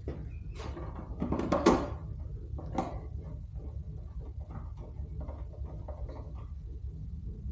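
Small clicks and knocks of hand hardware work as windshield screws are started into their mounts, the loudest knock about a second and a half in and lighter ticks later, over a steady low hum.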